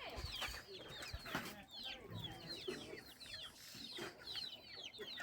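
Chickens clucking, with many short, high cheeps repeating throughout, and a few low thumps in the first couple of seconds.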